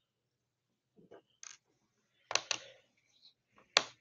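A small screwdriver and screws clicking and tapping against the bottom case of an HP Chromebook 11 G5 as its bottom screws are backed out. There are about six sharp clicks, the loudest a pair about two and a half seconds in and one near the end.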